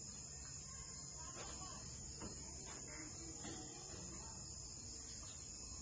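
Steady high-pitched trilling of crickets, with a few faint soft taps.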